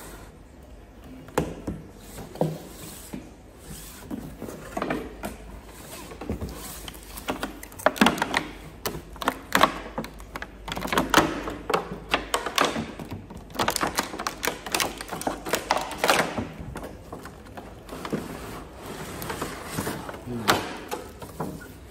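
Cardboard box and clear plastic packaging being handled and unpacked: dense crackling and crinkling of plastic, with scattered knocks of cardboard on the table, busiest in the middle.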